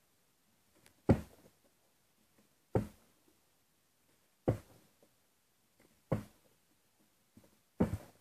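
A plastic bottle flipped into the air and landing with a hollow thud, five times at a steady pace about every second and a half to two seconds.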